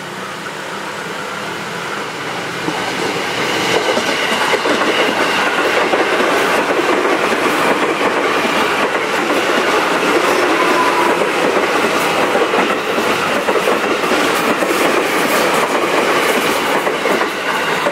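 Commuter Line electric multiple-unit train passing close by on a curve. It grows louder over the first few seconds as it arrives, then the cars run by with wheels clattering and clicking over the rail joints.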